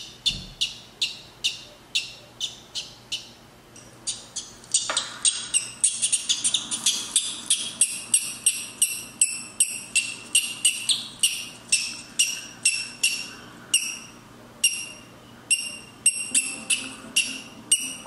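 A newly hatched parrot chick peeping over and over in short, high-pitched calls, about three a second at first and quicker, about five a second, from roughly five seconds in.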